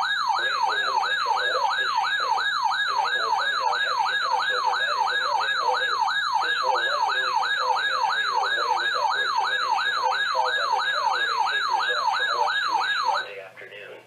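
Weather alert radio's alarm siren going off for an incoming severe thunderstorm warning: a loud falling sweep repeated about two and a half times a second, stopping abruptly about a second before the end. A faint broadcast voice runs underneath.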